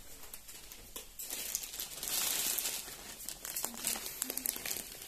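Silk saree fabric rustling and crinkling as it is unfolded and draped, growing louder about a second in.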